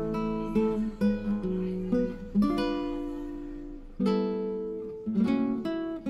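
Background music: acoustic guitar playing a run of plucked notes and chords, each note fading after it is struck.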